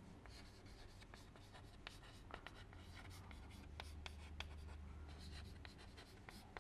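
Chalk writing on a blackboard, faint: a string of short taps and scratches as each stroke is made.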